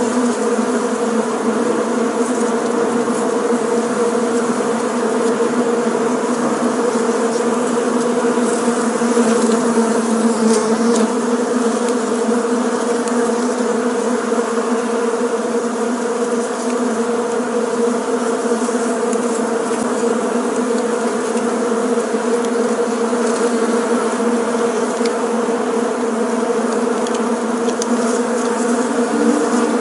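A swarm of bees buzzing in a steady, unbroken drone with a low hum.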